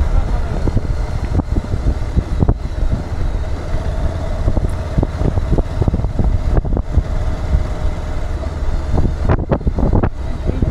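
Motorcycle riding in city traffic: a steady low engine and road rumble with wind buffeting the microphone, and a few sharp knocks about nine to ten seconds in.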